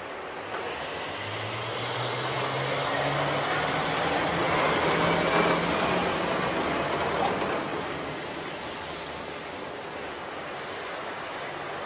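Amphibious assault vehicle's diesel engine running, with water rushing and splashing as the vehicle drives out of a ship's flooded well deck into the sea. The engine drone grows louder and rises slightly in pitch, is loudest about five seconds in, then fades as the vehicle moves away, leaving the steady rush of water.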